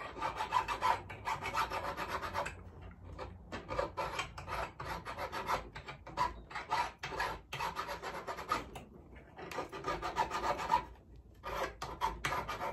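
A jeweler's file rasping across the top of a tufa-cast sterling silver ring in quick back-and-forth strokes, filing down the raised water wave design. The strokes come in runs with a few brief pauses.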